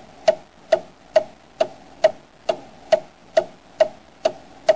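Steady, even ticking like a clock, about two sharp ticks a second, each with a slight ring.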